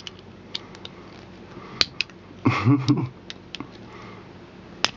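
Scattered light clicks and taps of pliers working at the magnet in the metal base of a vape mod, about eight in all. A short murmur of voice comes about halfway through.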